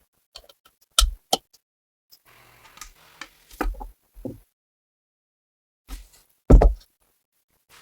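A handful of separate sharp knocks and clicks, typical of metal parts of a submachine gun being handled and fitted during repair; the loudest knock comes about six and a half seconds in.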